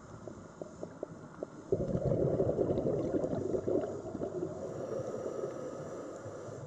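Scuba diver exhaling through a regulator underwater: a burst of bubbles gurgling and crackling starts suddenly about two seconds in and slowly dies away over the next few seconds. Scattered faint clicks before it.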